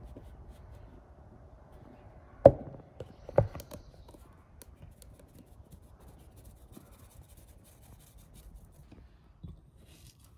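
Flour being sifted through a metal mesh sieve into a plastic bowl. Two sharp knocks come about two and a half and three and a half seconds in. After them there is soft, faint patting and rustling as the sieve is tapped by hand.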